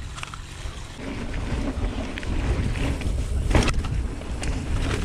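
Wind buffeting the action camera's microphone and tyres rumbling over a dirt trail as a hardtail mountain bike descends, growing louder as it picks up speed, with a sharp knock about three and a half seconds in.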